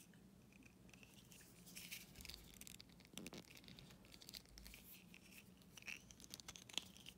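Near silence with faint clicks and scrapes of small plastic doll parts being handled, as a plastic boot is worked onto a fashion doll's foot, over a faint low hum.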